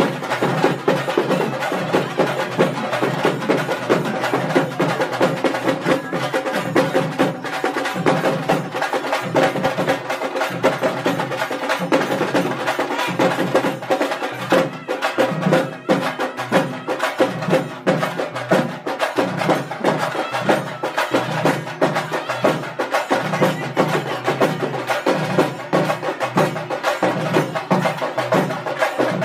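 Traditional South Indian temple festival music: fast, dense drumming and wooden percussion strokes over a steady held tone, without pause.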